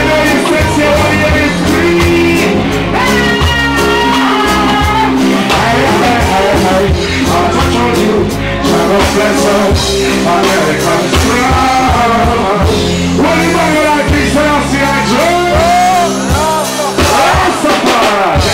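Live reggae band playing, with drum kit, electric guitar, bass and keyboards, while a male vocalist sings into a microphone over it.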